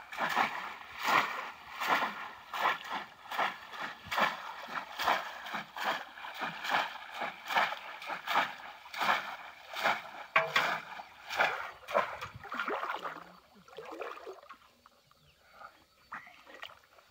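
Woven bamboo cone-shaped fish traps plunged again and again into shallow muddy water, a rapid rhythm of splashes about two a second that dies away near the end as the traps are held pressed to the bottom.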